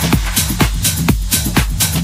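Techno track playing: a steady four-on-the-floor kick drum about twice a second, with high ticking hi-hats between the kicks over a continuous bass.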